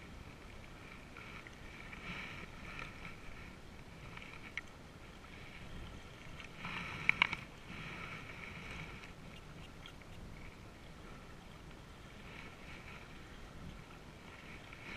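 Small waves lapping and washing against a rocky lakeshore in a steady breeze. A pair of sharp clicks comes about seven seconds in.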